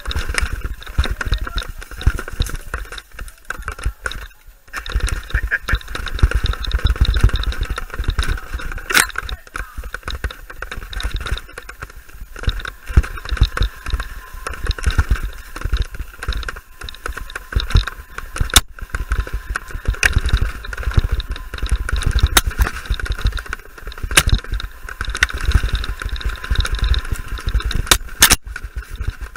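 Enduro bike riding fast down a dirt forest trail. Wind buffets the mounted camera, and the tyres and frame rattle over the rough ground, with sharp knocks from roots and bumps every few seconds.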